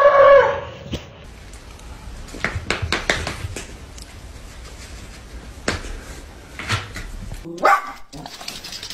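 A dog barking and whining in short calls, among scattered sharp taps.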